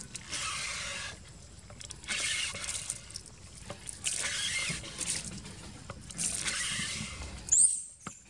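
Water gushing from a pump's outlet pipe in four spurts about two seconds apart, splashing onto a plate and wet ground. Near the end comes a short, high squeak.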